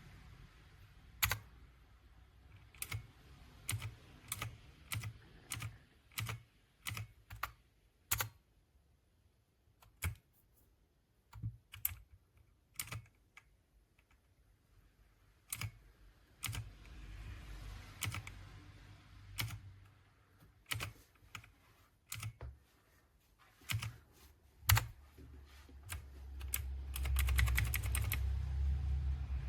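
Clicky blue-switch mechanical keyboard keys pressed one at a time at irregular intervals with pauses between, then a quick run of keystrokes over a low rumble near the end.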